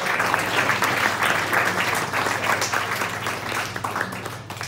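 A roomful of people applauding, the clapping thinning out and fading toward the end.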